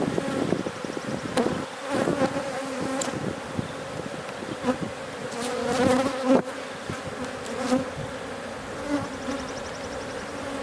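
Honey bees buzzing over an open hive, a steady droning hum, with a few sharp clicks and knocks scattered through it.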